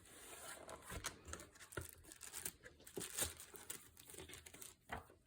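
Taped cardboard box and its packing being pulled open and handled: faint crinkling, tearing and small irregular knocks.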